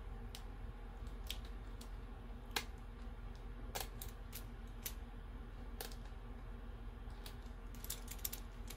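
Precision screwdriver turning small screws into a plastic drone shell: scattered light clicks and ticks at irregular intervals, with a faint steady hum underneath.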